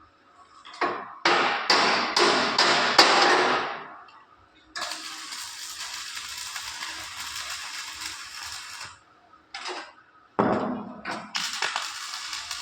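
Stick (arc) welding: a series of sharp, loud strikes, then the welding arc crackling and hissing steadily for about four seconds. After a couple more strikes the arc crackles steadily again near the end.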